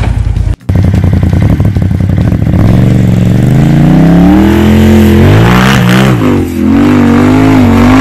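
A tube-chassis rock buggy's engine comes in after a brief gap, running with a fast, lumpy beat. It then revs hard under load as the buggy climbs a steep dirt gully, its pitch rising, wavering up and down, and held high near the end.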